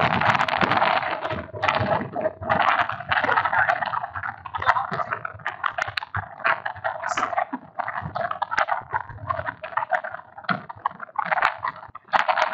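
A stylus scratching across a writing tablet in short bursts of strokes, with small clicks as it lifts and taps down, while handwriting is written out.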